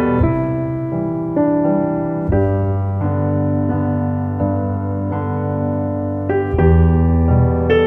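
Background piano music: unhurried notes and chords over low bass notes, the chords changing every second or two.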